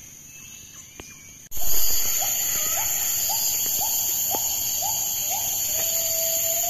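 Forest wildlife chorus: a steady high insect drone and an animal giving short rising calls about twice a second, ending in one longer drawn-out call. It starts suddenly about one and a half seconds in, after a quieter stretch.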